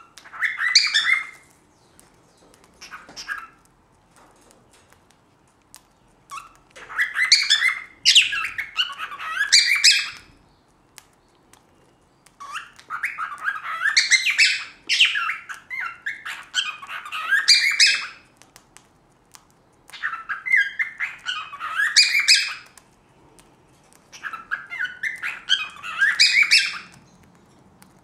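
Cockatiels chattering and warbling: about six bursts of quick, varied calls, each from under a second to about five seconds long, with short quiet pauses between.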